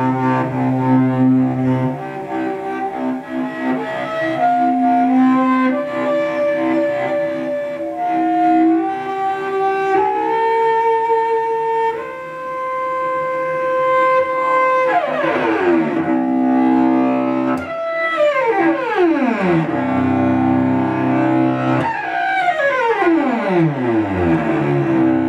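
Solo cello, bowed. It plays a melodic line of changing notes, then long held notes that step upward, then three long downward glissandos, each sliding from high to low.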